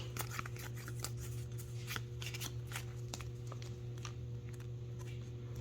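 Pokémon trading cards from a booster pack being slid and shuffled by hand, a run of soft irregular card clicks and rustles, over a steady low electrical hum.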